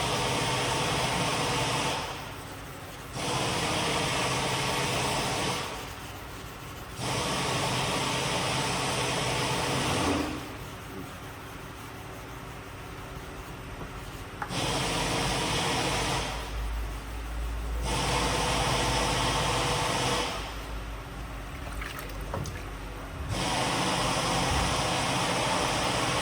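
A workshop power tool running in repeated bursts of two to three seconds, switched off briefly between them.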